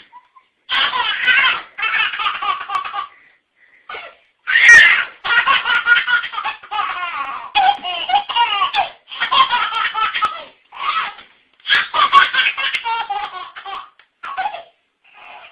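A baby laughing loudly in repeated fits of a second or two, with short breaks between them.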